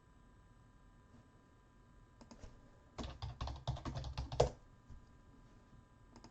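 Typing on a computer keyboard: a few keystrokes about two seconds in, then a quick run of keystrokes lasting about a second and a half.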